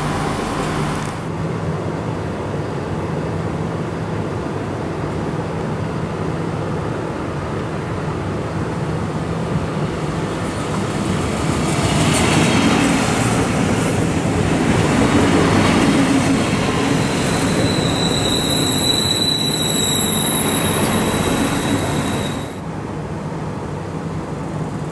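DB class 643 (Bombardier Talent) diesel multiple unit moving off down the line, its diesel engines running under load with a steady low hum that grows louder through the middle. Near the end a high, steady squeal joins in before the sound drops off abruptly.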